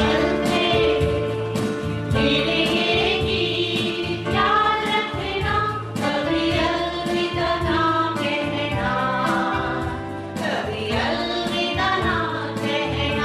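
A group of women singing together into microphones, accompanied by a Yamaha electronic keyboard with a steady beat.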